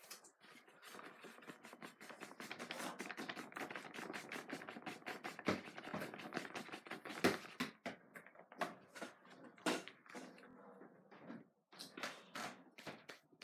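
Fast scratchy strokes on paper, many a second, like colouring or scribbling. About eight seconds in they thin out to scattered taps and rustles of handling paper and craft things.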